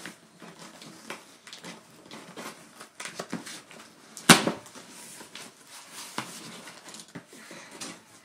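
Scissors cutting through packing tape and the cardboard of a box, with irregular snips, scrapes and cardboard rustles, and one much louder sharp snap about four seconds in.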